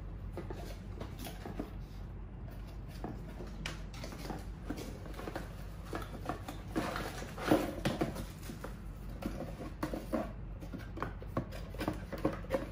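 Rustling and light clacking of a cardboard gift box and stacked small plastic plant pots being handled and unpacked, with a louder knock about seven and a half seconds in.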